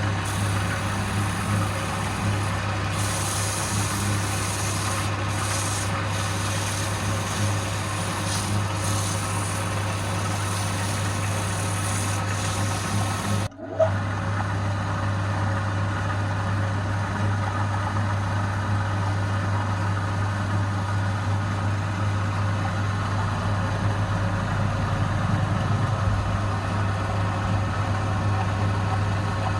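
Wood lathe motor running steadily with a low hum, while a turning tool rubs and scrapes on the spinning wood, most audibly in the first half. About halfway through the sound drops out briefly with a click, then the hum carries on.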